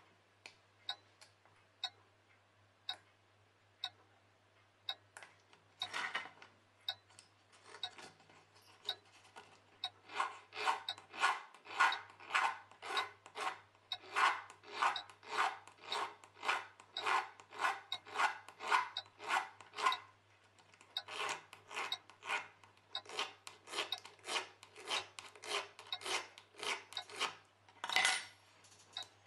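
Hand filing of a small metal watch-case part, the fly spring, in rasping strokes about two a second that start about six seconds in, pause briefly twice and end near the close. A clock ticks steadily about once a second underneath.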